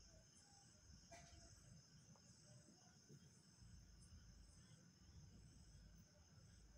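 Faint, steady high-pitched insect chorus, crickets trilling, over a low rumble, with one soft click about a second in.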